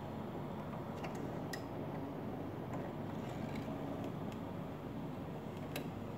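Steady low hum with a few faint, short clicks of small parts being handled at the sewing machine.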